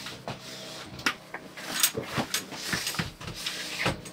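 Wooden slatted bed slide-out being handled, giving about half a dozen separate knocks and clunks of wood.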